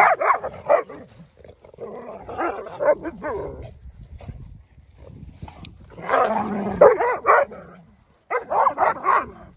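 Several Dalmatians barking in bursts during rough group play, with a few yips mixed in: four bouts, at the start, about two seconds in, about six seconds in and near the end.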